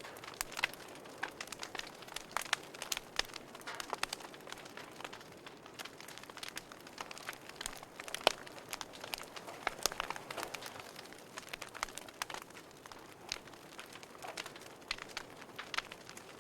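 Wood fire crackling in a fireplace: irregular sharp pops and snaps over a soft hiss.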